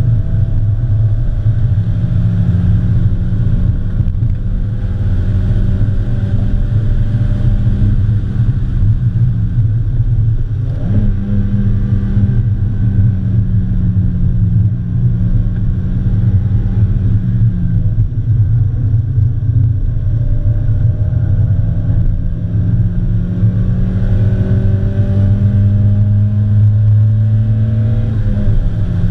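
A 2003 Mazda Miata's 1.8-litre four-cylinder engine running hard, heard from inside the cabin with road and wind noise. The engine note holds fairly steady and shifts in pitch a few times, with one short rise about eleven seconds in.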